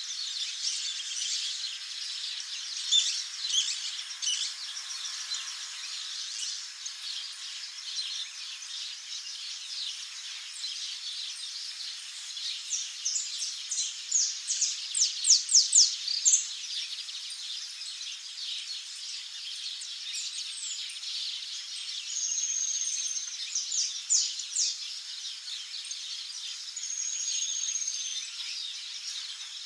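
Small wild birds chirping and calling continuously, with a run of loud, rapid sharp chirps about halfway through and two short high whistled notes later on.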